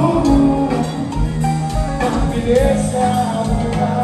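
Live band playing loud amplified music: electric guitars over a steady drum beat of about two thumps a second, with a singer.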